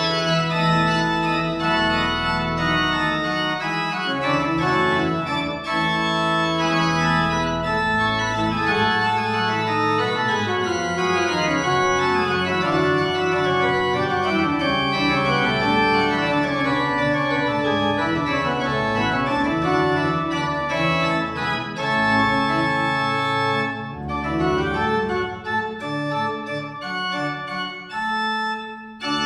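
Church organ playing a piece in sustained full chords over a moving bass line. From about three-quarters of the way through, the chords turn shorter and more detached, with brief gaps between them.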